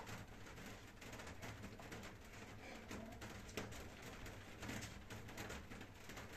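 Faint soft taps and thuds of bare feet stepping and shifting on an exercise mat during shadowboxing footwork.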